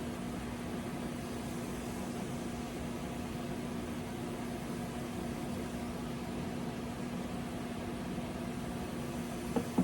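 A steady mechanical hum with a constant low tone, the even running noise of a room appliance such as a fan.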